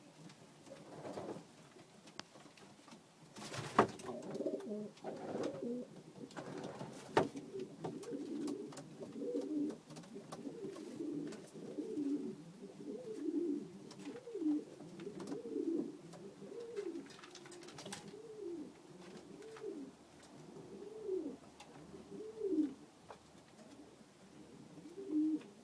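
Domestic pigeons cooing over and over, a run of low coos that rise and fall in pitch, with a few sharp clicks or knocks among them.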